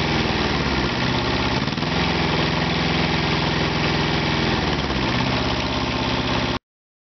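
Ingersoll-Rand TK270M two-cylinder diesel engine running, its speed dropping about a second in, rising again near two seconds and dropping once more about five seconds in. The sound cuts off suddenly near the end.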